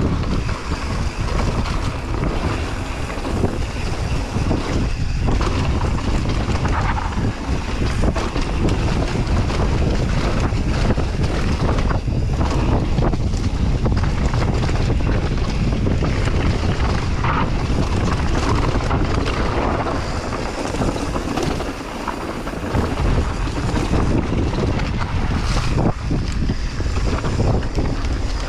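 Wind buffeting the microphone during a fast mountain bike descent, a steady low rumble from the ride over the dirt trail, broken by scattered knocks and rattles of the bike over bumps.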